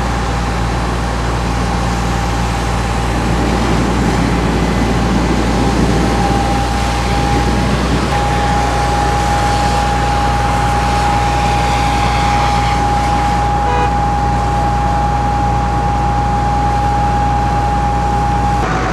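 Fire trucks' engines running steadily at a fire scene: a low engine hum with a constant whine held at one pitch, under a broad rushing noise.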